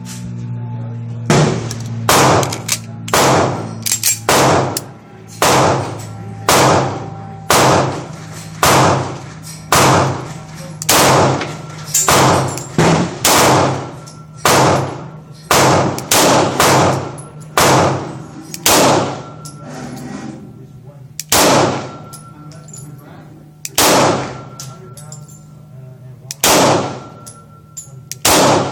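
Gunshots from a firearm fired singly, about one a second, around two dozen in all, with longer pauses between the last few shots.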